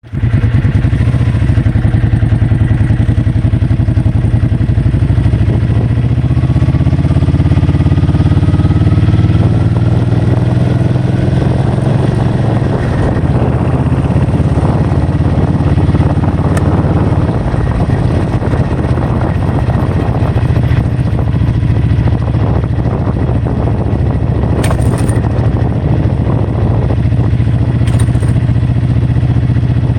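A vehicle engine runs steadily and speeds up, its pitch rising over the first dozen seconds, under heavy wind noise.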